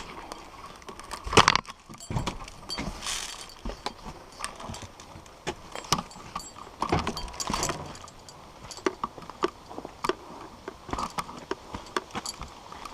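Irregular footsteps and rattling gear of an airsoft player on the move, with scattered sharp clicks and knocks; the loudest knock comes about a second and a half in.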